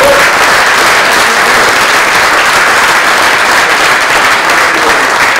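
Audience applauding: a loud, dense, steady clapping from a crowd.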